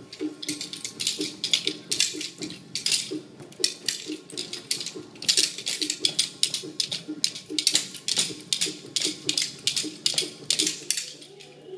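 Naruko, the hand-held wooden clappers of yosakoi dance, clacking in quick rattling bursts as they are shaken through the moves.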